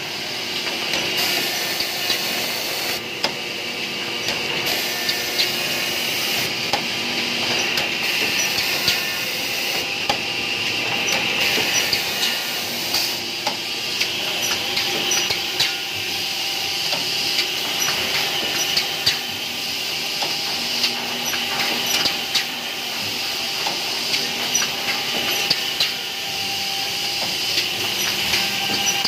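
Automatic edge banding machine running: a steady motor whine and hiss, with frequent sharp clicks and knocks throughout.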